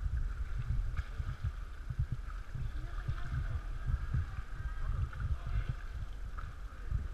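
Water sloshing and paddle splashes around an inflatable sea canoe, over a low, uneven rumble.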